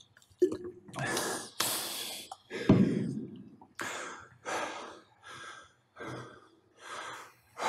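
A man breathing hard with quick, heavy breaths, about ten in a row, out of breath after an all-out air-bike sprint interval.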